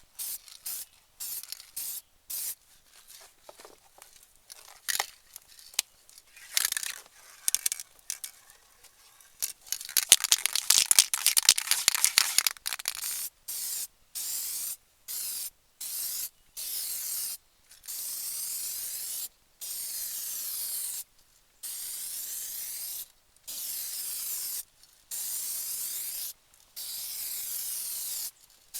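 Aerosol can of automotive primer spraying in repeated hissing bursts of a second or so each, with short pauses between, as a light coat goes onto a body-filler patch. The hiss is louder and rougher for a few seconds near the middle.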